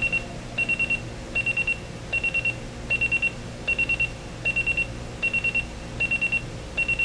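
Sony ICF-C1 clock radio's alarm buzzer sounding. It gives a high-pitched electronic beep in quick groups of four, one group about every three quarters of a second.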